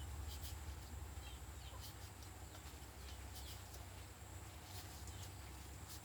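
Faint outdoor rural ambience: a steady low rumble with scattered light clicks and a few faint, short bird chirps.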